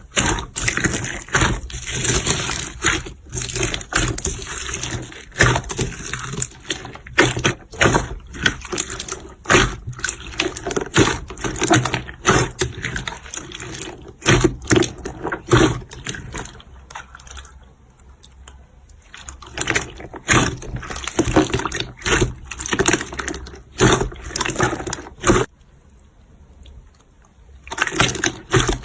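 Slime being squeezed and poked by hand: a run of wet, sticky clicks, pops and squelches coming irregularly, easing off twice for a couple of seconds.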